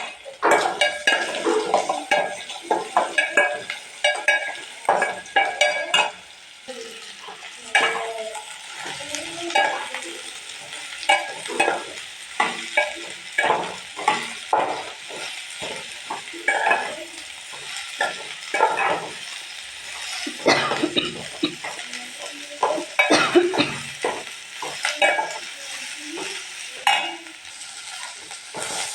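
A metal spoon stirring and scraping food in a pan, with frequent irregular knocks against the pan, over a steady sizzle of frying.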